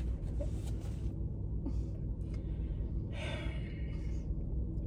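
Steady low rumble of a car idling, heard from inside the cabin, with a short breathy exhale about three seconds in.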